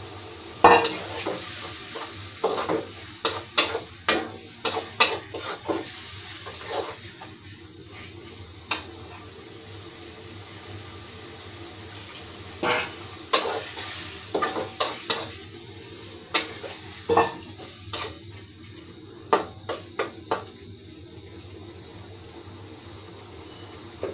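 A metal spoon or spatula knocking and scraping against a cooking pan in two bouts of stirring, as ground spice paste is worked into frying onions and brinjal. A faint steady sizzle runs underneath.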